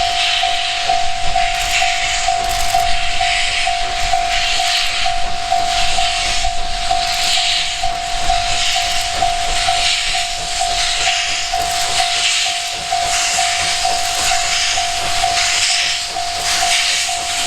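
C57 180 steam locomotive's exhaust chuffing (draft) as it starts away from a station: hissing beats at about one a second over a steady high tone.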